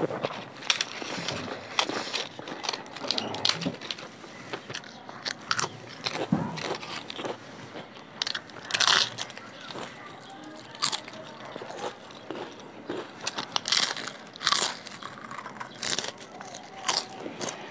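Close-up eating sounds: a crisp fried papad crunching between the teeth, with chewing and wet mouth noises. Loud, sharp crunches come irregularly, every second or two.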